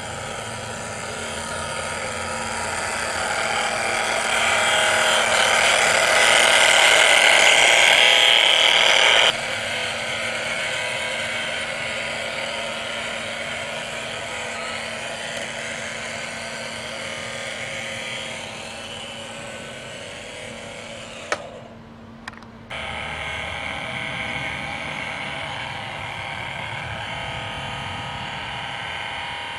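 LGB garden-scale model locomotive running on the track, its electric motor and gearing whirring. The whir grows louder over the first several seconds and cuts off abruptly about nine seconds in. After a brief drop about two-thirds through, a steady whir continues.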